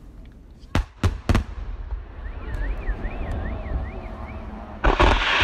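Fireworks display: three sharp shell bursts about a second in, a warbling whistle in the middle, then near the end a loud, sustained rush of bursts as the sky fills with glittering stars.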